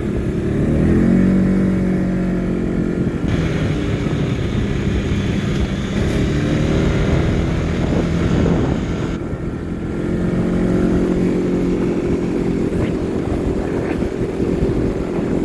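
Arctic Cat Alterra 600 ATV's single-cylinder engine running hard while riding. The revs climb about a second in, hold steady, ease off around nine seconds, then climb again.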